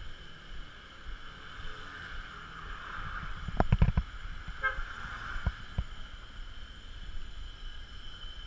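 Petrol being poured from a glass bottle through a plastic funnel into a scooter's fuel tank, a steady trickle. A cluster of sharp knocks comes about three and a half seconds in, with a few lighter clicks after.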